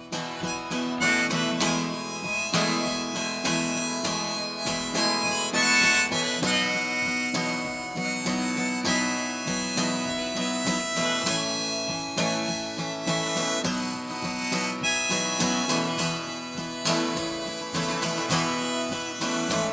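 Instrumental break of a country-folk song: harmonica playing over strummed acoustic guitar. It comes in abruptly and continues steadily.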